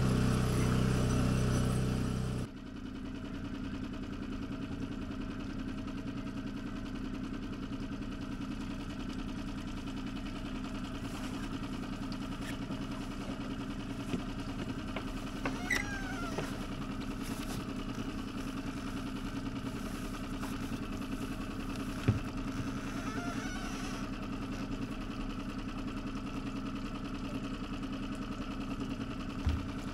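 A small sailboat's motor running steadily while the boat moves under power, with a few light knocks. A louder, deeper hum cuts off abruptly about two and a half seconds in.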